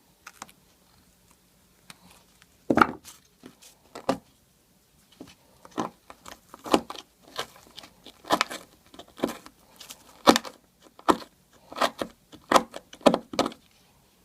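Tool scraping and cracking at hardened glue in the knot socket of a shaving brush handle, in short irregular strokes that come faster in the second half.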